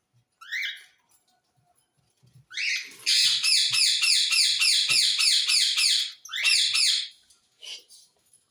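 Parrot screeching: a single rising screech, then a fast run of repeated rising screeches at about four a second for some three seconds, then one more screech and a fainter one near the end.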